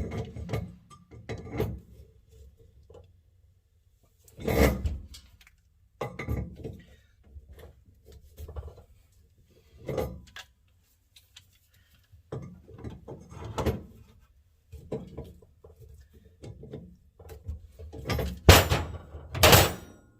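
Irregular clunks and knocks of metal parts and tools being handled during work on air-ride plumbing, with a loud knock about four seconds in and two more near the end.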